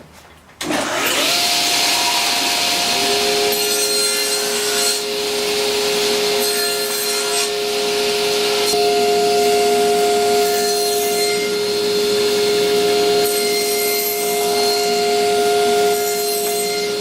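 A power saw starting up about a second in, its pitch rising quickly, then running steadily while cutting notches into wooden base pieces. It stops abruptly near the end.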